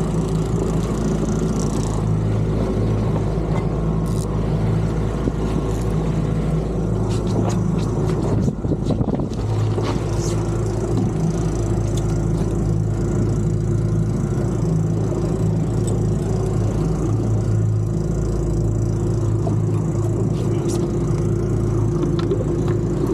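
Boat engine running steadily at trolling speed, with a constant low drone and water and wind noise; the drone briefly wavers about eight seconds in.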